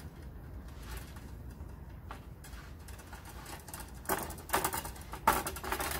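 Soft copper brake pipe being straightened by hand, sliding and rattling against the workbench: little sound at first, then a few short scraping rattles over the last two seconds.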